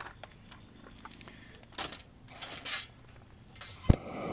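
Handheld Bernzomatic butane torch being worked at a charcoal chimney starter: a few faint clicks and brief hisses, then one sharp, loud igniter click near the end, with the torch flame starting to hiss just after.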